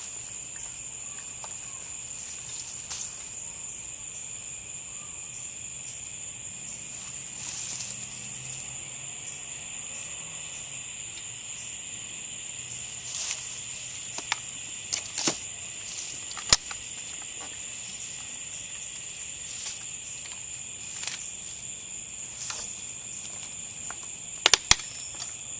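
Steady high-pitched insect chorus, with scattered sharp clicks and snaps and three quick clicks near the end.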